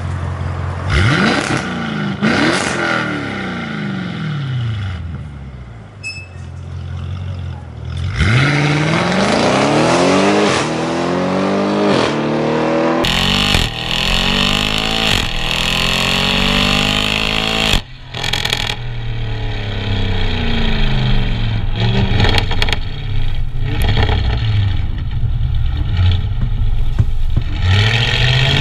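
Audi RS6's twin-turbo V8 through a valved aftermarket catback exhaust with catless downpipes. It is revved from idle in a few sharp blips that climb fast and fall back slowly, then after about halfway is heard close at the tailpipe while driving, pitch rising and falling as it accelerates and shifts.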